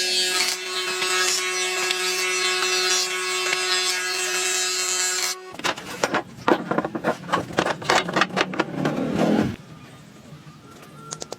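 An electric power tool running steadily on wood with a high whine, cutting off abruptly about five seconds in. Then a few seconds of irregular scraping strokes on wood, after which it goes much quieter.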